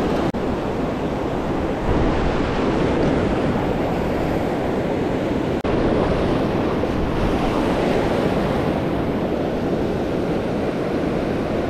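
Sea surf washing in steadily, with wind on the microphone; the sound cuts out for an instant twice.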